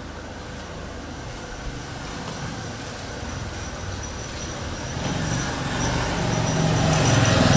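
Traffic noise: a large road vehicle approaching, its rumble growing steadily louder through the second half.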